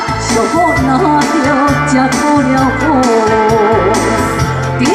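A woman singing into a microphone over backing music with a steady beat and bass, amplified through the stage PA.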